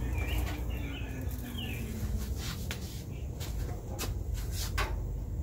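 Sharp clicks and knocks of metal as a beer-can chicken on its stand is set onto the grates of a propane gas grill, with a few bird chirps in the first two seconds.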